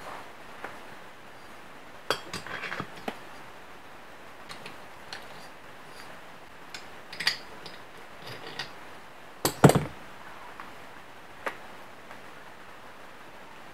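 Metal engine parts clinking and knocking as a Peugeot SPX two-stroke moped cylinder and cylinder head are fitted onto the crankcase by hand. The sound is scattered light clicks and taps, with a few sharper knocks a little past the middle.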